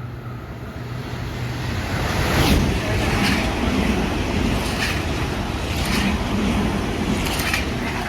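A train passing at speed: a rush of noise builds about two seconds in and holds, with a series of sharp clacks from the wheels as the carriages go by.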